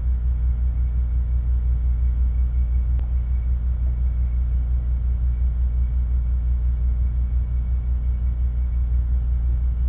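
Ship's engine running steadily, a low droning hum.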